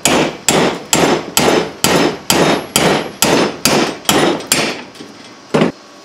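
Hammer blows on a bent sheet-steel mower part clamped in a bench vise, beating it back into line. Sharp metallic strikes come at a steady pace of about two a second, each ringing briefly, then a short pause and one last blow near the end.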